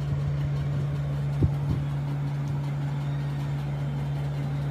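A steady low hum, with one short thump about a second and a half in.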